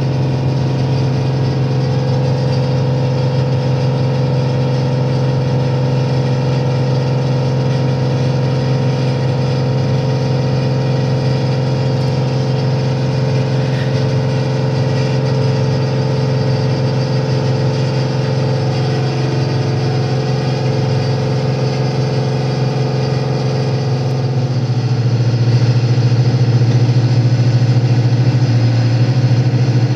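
Romanian 060-EA electric locomotive standing with its pantograph raised, its auxiliary machines (air compressor and ventilation blowers) running with a steady low hum. About 25 seconds in the hum grows louder.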